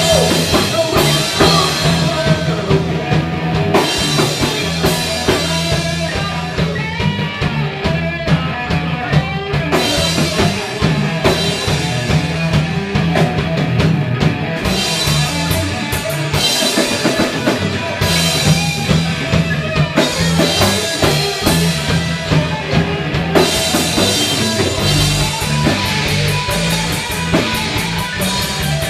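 A live rock band playing loud, amplified music with electric guitar and drum kit, continuous throughout.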